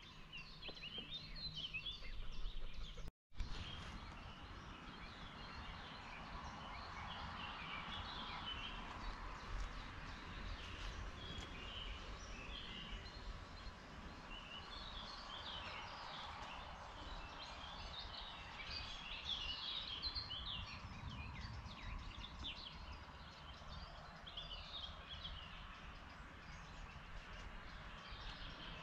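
Birdsong: several small birds singing and chirping at once, faint, over a low rumble.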